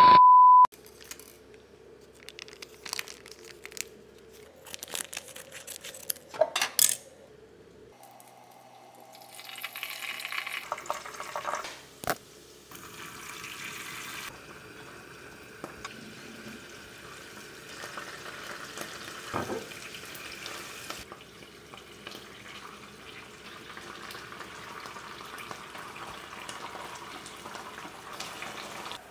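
A short steady high beep, then scattered clicks and clatter of kitchenware. From about twelve seconds in, a steady watery hiss runs on.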